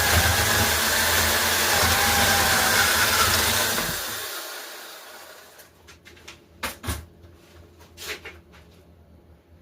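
Battery-powered electric chainsaw running and cutting through camphor wood, its whine wavering under load, then winding down and stopping about four seconds in. A few sharp knocks follow, likely wood pieces being handled.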